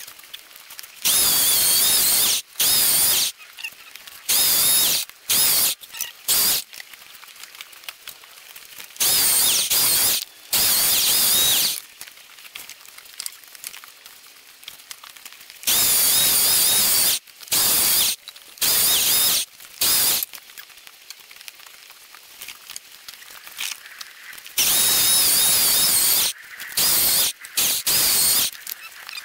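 Corded electric chainsaw cutting small oak logs on a sawhorse, in repeated bursts of one to two seconds with short pauses between. A high whine wavers in pitch as the chain bites.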